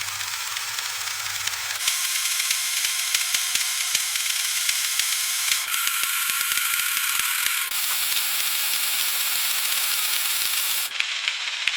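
Food frying in hot oil: a steady sizzle full of small pops and crackles, its tone shifting abruptly a few times.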